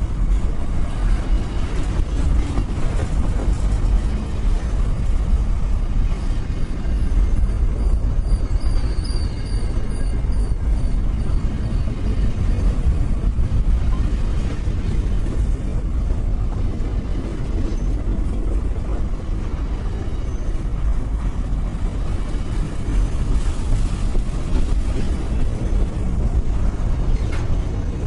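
Diesel locomotive running with a steady low rumble, with a brief high, wavering squeal about eight to eleven seconds in.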